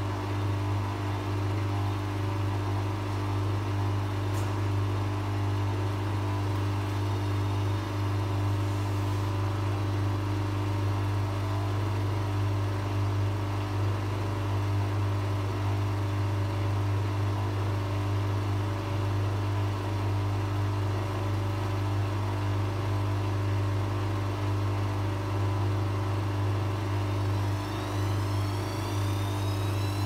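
Bush WMNB712EW washing machine in its 1200 rpm final spin, the drum and motor running with a steady low hum. A high whine rises in pitch near the end.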